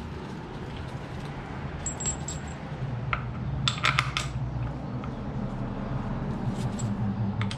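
Steel bolts clinking against each other and against the transmission's bellhousing as they are picked up and pushed through the bolt holes by hand. There are a few sharp metallic clinks at irregular moments, over a steady low hum.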